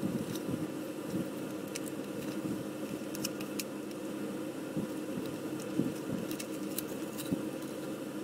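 Masking tape being handled, pressed down and torn on a small model car body, giving scattered small clicks and crackles over a steady low hum.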